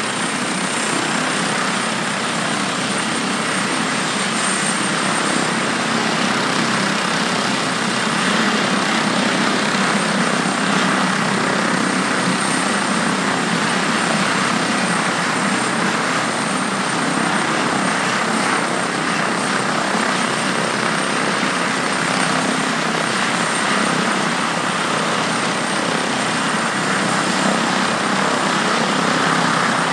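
Airbus H145 D3 helicopter with its twin turboshaft engines and five-blade rotor running: a steady high-pitched turbine whine over a loud, even rush of engine and rotor noise, growing slightly louder over the first ten seconds or so.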